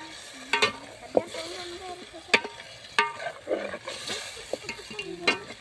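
Metal spoon stirring food frying in a pan, with a steady sizzle and a few sharp clinks of metal on metal.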